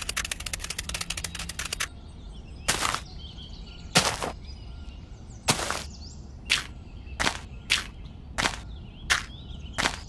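Small shovel digging into sand: a fast run of scratchy clicks for about two seconds, then short scraping scoops about once a second. Faint birdsong underneath.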